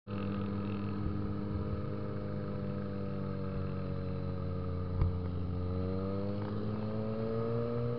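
Honda XR 250 Tornado's single-cylinder four-stroke engine running steadily, its pitch climbing slowly over the last couple of seconds. One sharp click about five seconds in.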